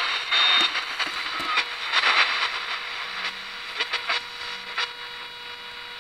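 Static from a pocket ELPA AM/FM radio's speaker, a hiss that swells and fades in irregular bursts as the FM tuning dial is turned between stations.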